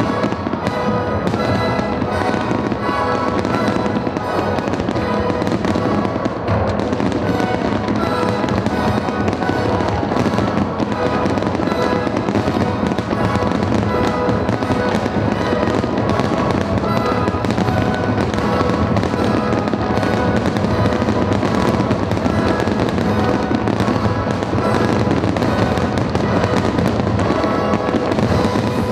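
Fireworks going off in a rapid, continuous string of bangs over loud classical music.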